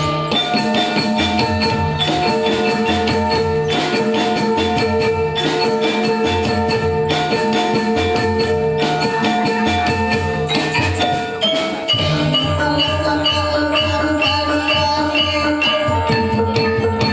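Javanese gamelan music: tuned metallophones struck in a quick, even rhythm over a drum, with a brief break about twelve seconds in before the melodic pattern changes.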